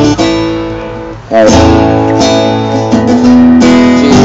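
Acoustic guitar strumming chords, each chord left to ring and fade before the next is struck.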